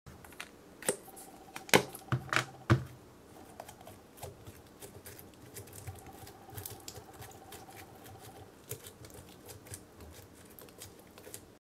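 A plastic syringe being handled by hand: sharp clicks and taps of the plastic, several loud ones in the first three seconds, then lighter clicks and soft rubbing as glitter clay is pushed into the barrel.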